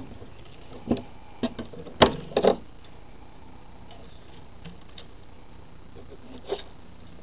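Handling sounds from fingers working a self-adhesive sponge strip into a knitting machine's metal sponge bar: a few scattered light taps and clicks, the loudest about two seconds in, with long quiet stretches between.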